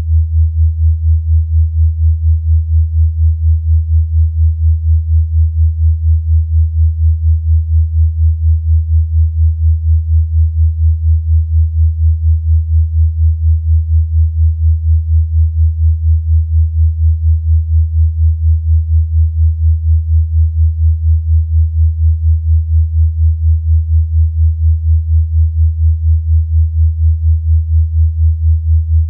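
A synthesized low sine tone, sustained and unchanging in pitch, that pulses evenly several times a second. It is a 'healing frequency' track meant to be played over headphones for relaxation.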